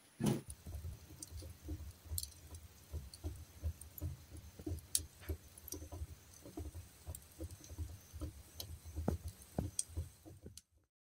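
Freshly lit wood fire crackling inside a closed cast-iron wood-burning stove: irregular small pops and ticks over a low fluttering of the flames, with one sharper knock right at the start. The sound cuts off suddenly near the end.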